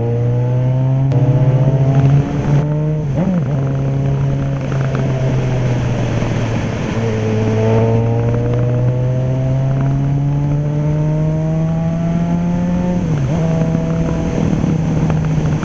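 Yamaha XJ6's inline-four engine under hard acceleration, its pitch climbing through the revs and dropping briefly at each gear change, about three times. It is a full-throated exhaust note, called a beautiful roar ("ronca muito").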